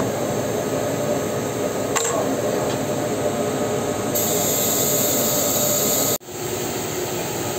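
Steady drone of shop machinery or ventilation, with a light click about two seconds in. A sharp high hiss joins it for about two seconds past the middle, then everything cuts off suddenly.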